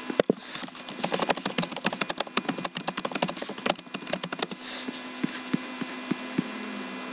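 Typing on a laptop keyboard: a quick, irregular run of key clicks that stops about four and a half seconds in, followed by a few separate clicks, over a steady electrical hum.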